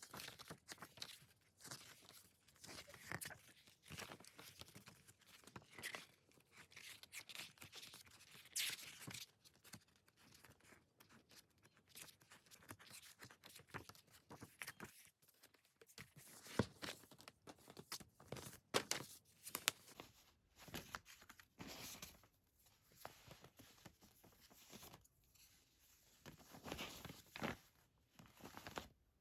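Hands unwrapping and handling packaged music albums: plastic wrap tearing and crinkling, with irregular soft taps and rustles.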